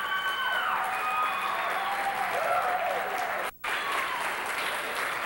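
Audience applauding at a curtain call, with voices calling and whooping over the clapping. The sound drops out for an instant about three and a half seconds in.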